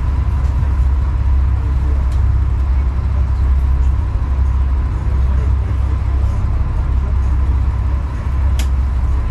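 Tour boat's engine running with a steady low rumble while under way.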